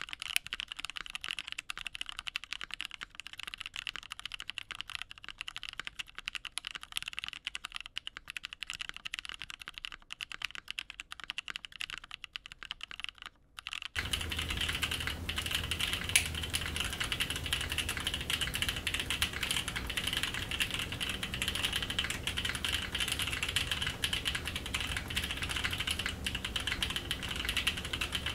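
Continuous typing on a dnworks.co SBL custom mechanical keyboard: Paco switches (NK Cream housings, Halo True stems, lubed with Tribosys 3203) on a full UHMWPE plate, with CYL Analog Dreams keycaps. About halfway through there is a brief break. After it the typing comes through the Sony a6000 camera's built-in mic instead of the Shure MV7X, with more low rumble and hiss.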